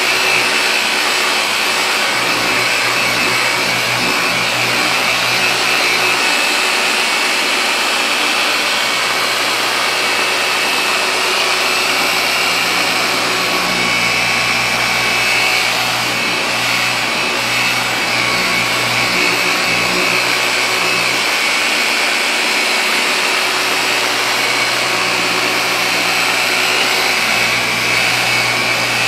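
Handheld car polisher running steadily with a steady whine, its microfiber cutting pad working compound into car paint during paint correction.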